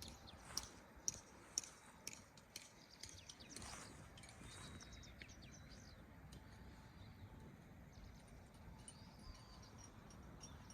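Near silence: faint outdoor ambience, with a few light clicks in the first seconds and faint high chirps later.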